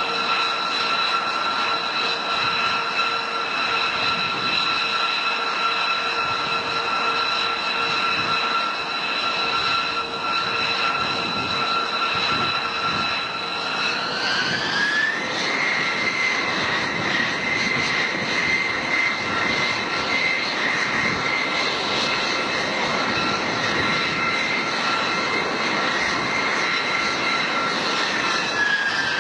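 Jet aircraft engines running: a steady turbine whine over a rushing noise. About halfway through, the whine rises in pitch as the engines spool up, holds at the higher pitch, then starts to fall near the end.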